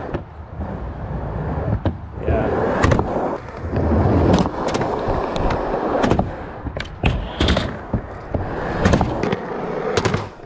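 Skateboard wheels rolling over a Skatelite ramp surface, with a series of sharp clacks and impacts from the board through the run.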